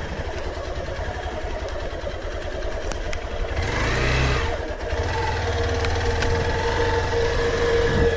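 Hero XPulse 200 motorcycle's single-cylinder engine running steadily, with a short swell in engine sound about four seconds in.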